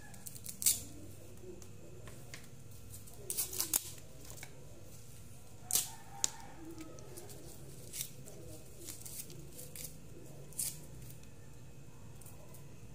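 Moringa leaves being stripped by hand from their thin stems: sharp little snaps and leaf rustles at irregular intervals, with a quick cluster of snaps a little over three seconds in.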